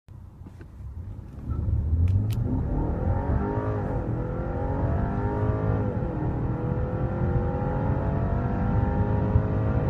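BMW 530e plug-in hybrid's turbocharged 2.0-litre four-cylinder petrol engine under full acceleration from a standstill, heard inside the cabin. It is quiet for the first second or so, then its note climbs steadily through each gear and drops back at the upshifts about four and six seconds in. A few light clicks sound in the first couple of seconds.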